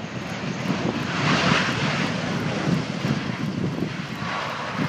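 Blue Angels F/A-18 Hornet's twin jet engines as the jet lands and rolls out down the runway. A loud, hissing jet noise swells about a second in and then holds steady.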